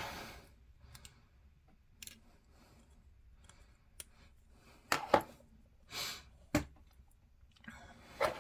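Hobby knife blade scraping and clicking against a small plastic miniature part: a scattering of short scrapes and clicks, the loudest a cluster about five to six and a half seconds in.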